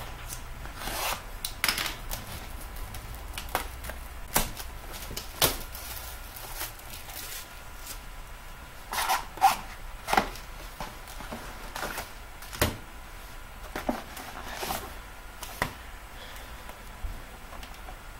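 A cardboard trading-card box being opened and handled: irregular scrapes, rustles and taps of cardboard, with foil-wrapped packs slid out and set down. The noises come in short separate bursts with pauses between them, the loudest around the middle of the stretch.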